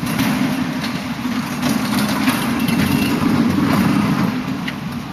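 Steady machinery drone on an air-conditioner production and testing line, with scattered light clicks and knocks over it.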